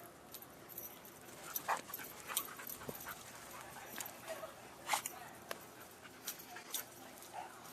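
Dogs giving scattered short whines and yips mixed with sharp clicks and rustles, the loudest about five seconds in.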